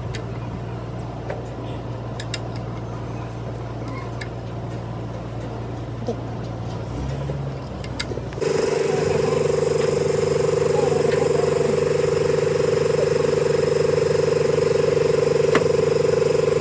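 Machinery running with a steady low hum; about eight seconds in, a much louder, steady higher-pitched whine sets in abruptly and holds.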